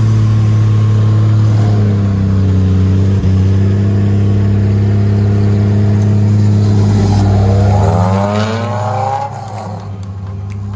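Off-road 4x4's engine running steadily, then revving up with a rising pitch near the end before the level drops away.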